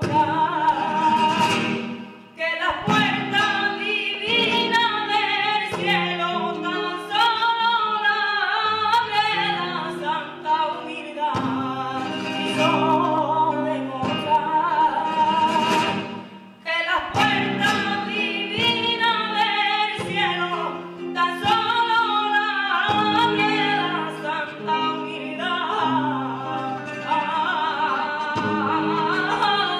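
Music: a woman singing a flamenco-style song with a wavering, ornamented melody, accompanied by a plucked Spanish acoustic guitar.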